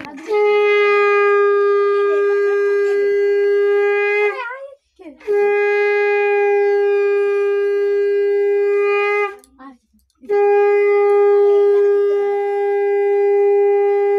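Conch shell (shankha) blown in three long, steady blasts with short pauses between them, the third still sounding at the end; the ritual conch call of a Bengali puja.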